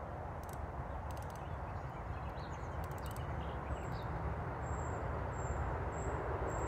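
Steady rushing of river water with a low rumble underneath, a few light clicks in the first half, and a bird's short, high, thin notes repeated several times in the second half.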